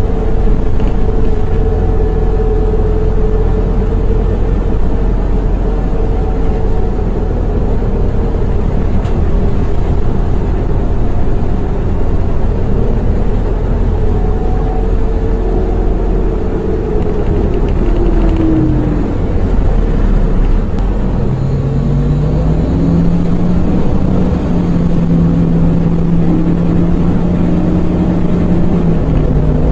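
City transit bus engine and drivetrain running with a steady low rumble and a whine whose pitch falls about halfway through. A lower tone then rises and holds steady near the end.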